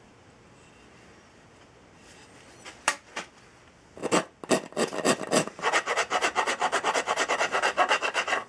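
Hand file scraping across the end of an ash axe handle, shaping the wood to fit the axe head. A couple of strokes about three seconds in, then from about four seconds a quick, steady run of back-and-forth strokes.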